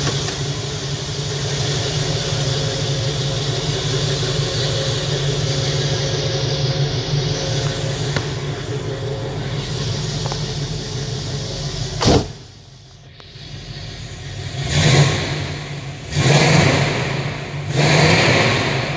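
1969 Pontiac Firebird engine running steadily, then a single sharp knock about twelve seconds in after which it sounds much quieter, followed by three quick revs.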